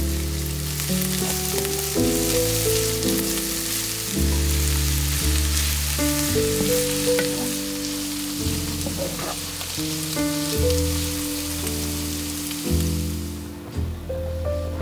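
Diced eggplant, onion and garlic sizzling in an oiled frying pan while a wooden spatula stirs them. The sizzle fades out near the end. Background music with slow held notes plays throughout.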